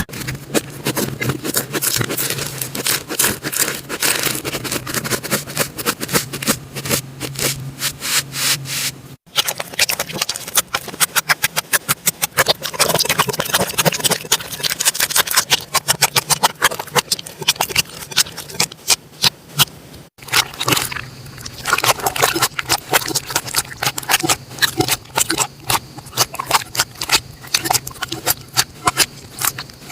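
Slime being squeezed and poked by hand, making a dense run of sticky crackles and clicks. It breaks off abruptly twice, about nine and twenty seconds in, where one clip cuts to the next.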